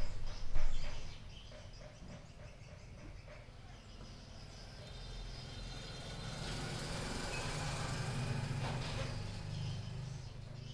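A motor vehicle's engine passes by. The hum swells from about six seconds in and fades before the end. A burst of sharp clicks and knocks in the first second is the loudest thing.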